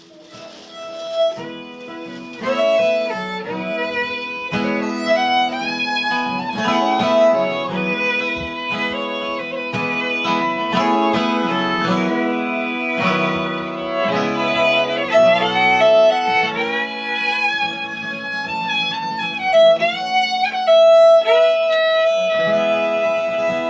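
Live instrumental passage of fiddle and acoustic guitar, the fiddle playing a melodic line over strummed guitar chords and ending on a long held note near the end.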